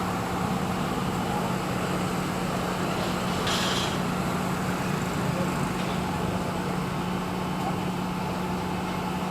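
Steady road traffic noise with a constant low engine drone, and a brief hiss about three and a half seconds in.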